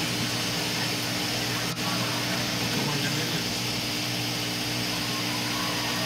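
Steady running noise of reef aquarium pumps and circulating water, with a low steady hum underneath.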